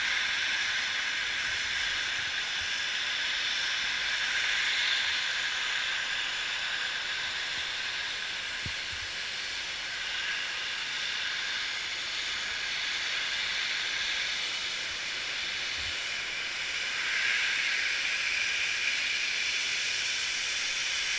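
Snowmaking guns spraying: a steady hiss of air and water that swells a little louder near the end.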